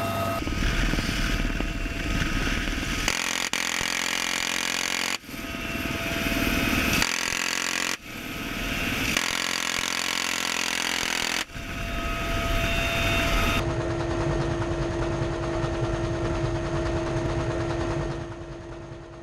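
UH-1Y Venom helicopter cabin noise through the open gunner's door, cut together with GAU-17/A minigun fire in rapid continuous strings. The last few seconds are steady helicopter rotor and engine noise with a constant hum, fading out near the end.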